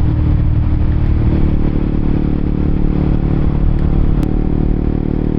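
Honda CBR motorcycle engine running steadily while riding, with an even hiss of wind and road noise over it.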